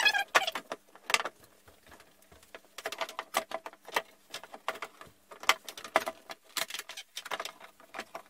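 Irregular clicks, taps and light scraping of a JG Aurora A5 3D printer's chassis lid and display panel being handled and worked into place.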